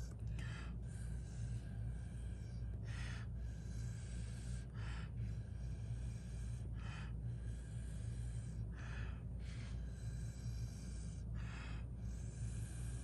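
Short puffs of breath blown through a drinking straw to push wet alcohol ink across Yupo paper: six puffs, about two seconds apart. A steady low hum runs underneath.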